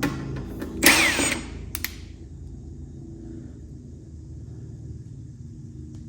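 A small powered screwdriver runs briefly about a second in, driving a screw, its pitch falling as it stops. A few clicks of handled parts and a steady low hum sit underneath.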